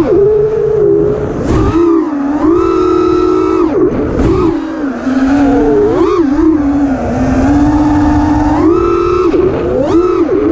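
Brushless motors and propellers of a five-inch FPV freestyle quadcopter on a 4S battery, heard close from the camera on the quad. The whine rises and falls as the throttle is punched and chopped, with sharp drops around four, six and ten seconds in.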